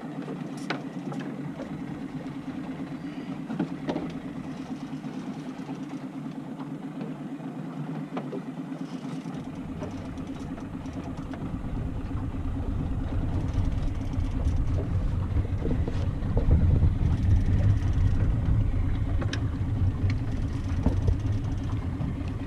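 Fishing boat's engine running steadily at low speed, with a deeper low rumble coming in about halfway through and growing louder.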